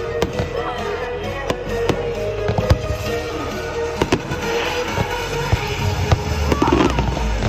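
Fireworks going off in quick succession: many sharp bangs and crackles, with music playing underneath.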